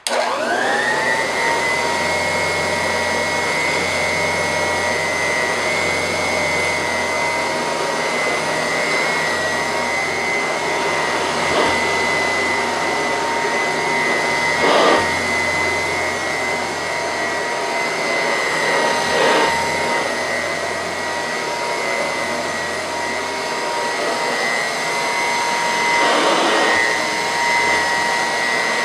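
Early-1940s Royal Model 131 upright vacuum cleaner switched on, its motor winding up to a steady high whine within about a second, then running steadily while it is pushed over a rug, with a few short swells of louder rushing air.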